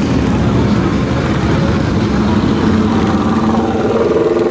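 Several motorcycle engines, mostly big Harley-Davidson V-twins, rumbling at low speed as the bikes ride slowly past close by. About three seconds in, one engine's note comes through more clearly as a bike pulls past near the microphone.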